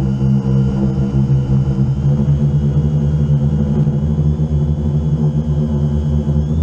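A drone's motors and propellers running in steady flight, heard up close through its onboard camera: a loud, steady hum with a faint high whine above it.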